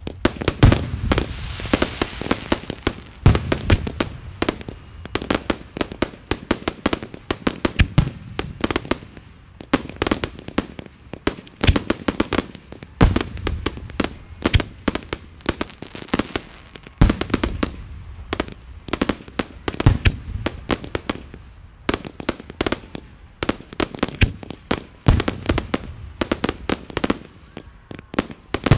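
Fireworks display with a rapid, near-continuous barrage of bangs and crackling reports, louder deep booms every second or two among them: aerial shells and cakes firing and bursting.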